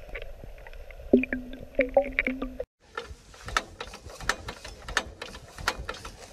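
Muffled underwater camera sound with a few short hums, then a brief silence. After it, a quick, irregular run of sharp mechanical clicks and ticks: the sound effect of an animated logo intro.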